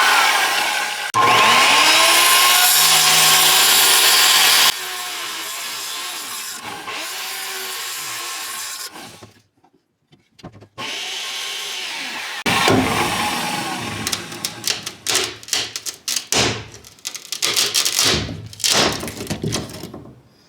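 Power saw cutting notches into plywood in runs, the motor winding down with a falling pitch between cuts. Over the last third come many sharp knocks and scrapes of the plywood being worked and handled.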